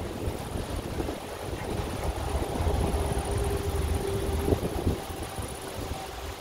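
Wind buffeting the microphone of a camera carried on a moving bicycle, a fluctuating low rumble, with a thin steady whine for a few seconds in the middle.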